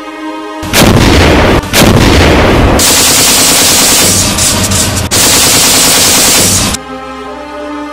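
Simulated tank-battle gunfire sound effects: two loud blasts about a second apart, then about four seconds of continuous gunfire that cuts off abruptly.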